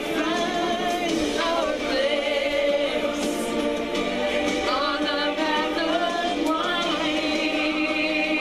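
Several voices singing a song together.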